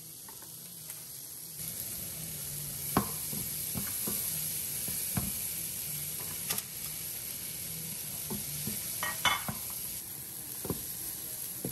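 Vegetables sizzling in melted butter in a frying pan as they are stirred, with a utensil knocking against the pan now and then. The sizzling swells about a second and a half in.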